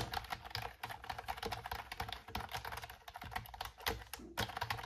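Computer-keyboard typing sound effect: a fast, continuous run of key clicks that accompanies on-screen text being typed out letter by letter, with a short break about four seconds in before the clicking resumes.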